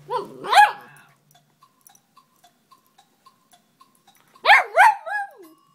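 Small dog barking in play with another dog: two quick high barks at the start, then a burst of three more about four and a half seconds in, the last one falling in pitch.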